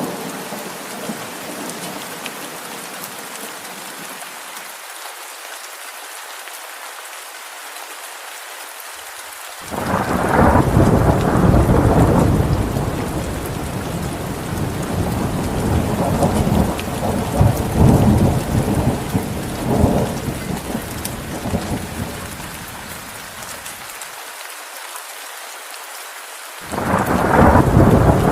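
Steady rain falling, with a roll of thunder breaking in suddenly about a third of the way through and rumbling for over ten seconds before fading, and a second thunder roll starting near the end.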